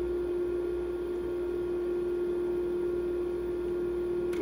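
A Magic Chef portable ice maker running with a steady, even hum that carries one strong tone, working normally again in its freezing cycle after its micro limit switch was replaced. A single click near the end comes as the ice tray begins to tip for the harvest.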